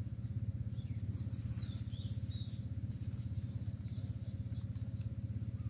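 Outdoor field ambience: a steady low rumble, with a few faint bird chirps about two seconds in.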